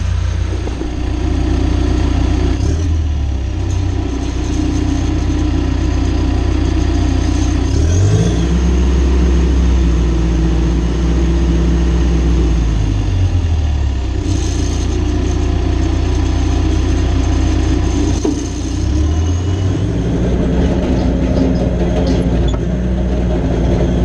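John Deere 450J crawler dozer's diesel engine running steadily while the machine is worked. Its pitch drops and climbs several times: down about three seconds in, up near eight seconds, down again around thirteen and eighteen seconds, and back up near twenty.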